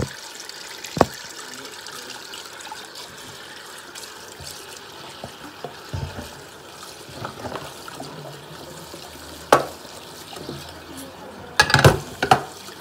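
Kitchen tap running steadily into a stainless steel sink as dishes are washed by hand with a sponge. A few sharp clinks of dishes knocking together: one about a second in, another later, and a quick cluster near the end.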